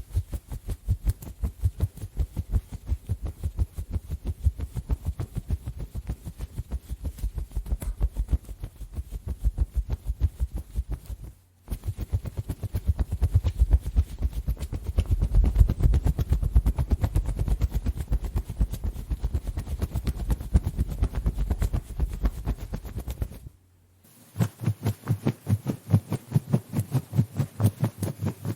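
Cartoon running sound effect: rapid, evenly repeating low footfall thuds, several a second, in three runs with short breaks about 11 and 24 seconds in, the middle run the loudest.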